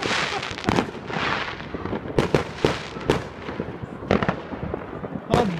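Fireworks going off: a string of sharp bangs, several in quick succession, with stretches of hissing between them.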